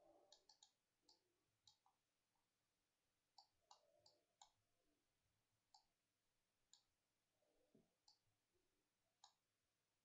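Faint computer mouse clicks, about a dozen, irregularly spaced.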